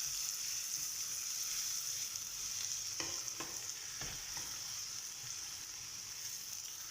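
Diced onion frying in hot oil with garlic, ginger and spices: a steady sizzle that eases slightly toward the end, with a few light knocks of the stirring spoon against the pot about three to four seconds in.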